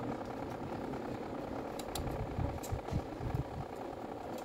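A few light plastic clicks and knocks from handling the opened housing of a Makita BO5030 orbital sander, over a steady background hum.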